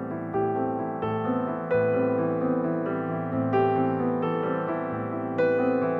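Background music: piano or electric piano playing sustained chords, with new notes struck about once a second.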